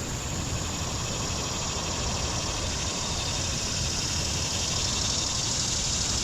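Steady rushing of a rain-swollen creek's flowing water, an even noise with no distinct events.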